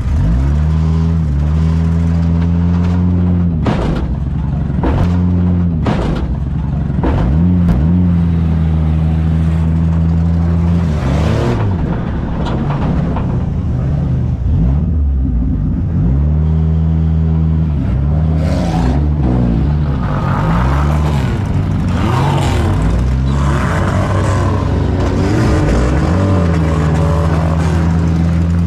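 Several demolition derby cars' engines running and revving hard, with sharp crashes of metal on metal as cars ram each other, several of them in the first half.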